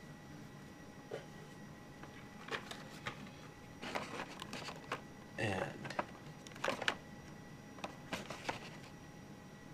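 Plastic blister packs on cardboard cards of boxed die-cast toy cars clicking and crinkling as they are handled and shifted in a stack. The sounds come in irregular bunches, loudest a little past the middle.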